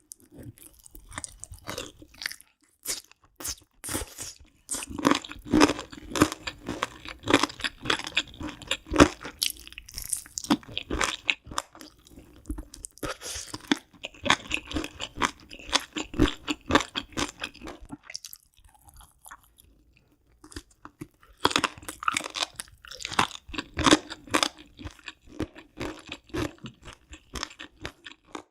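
Close-miked chewing and crunching of crisp food, a rapid crackle of bites and chews in long spells with a short lull about two-thirds of the way through.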